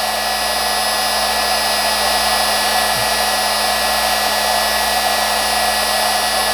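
Screw-Saver screwdriver-grinding machine running, its double-cut carbide burr spinning freely with a steady high whine and motor hum. The blade is being lowered toward the burr but has not yet touched it, so the pitch holds unchanged.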